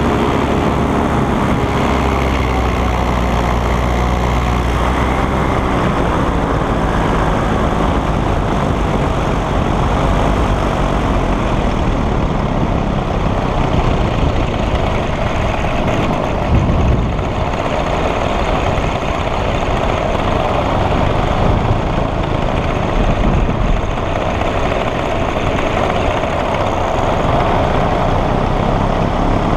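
Paramotor engine and propeller running steadily in flight.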